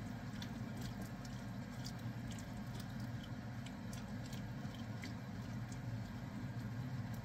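Spatula stirring chunks of vegetable in stock in a stainless steel pan, with faint scattered clicks and scrapes over a steady low hum.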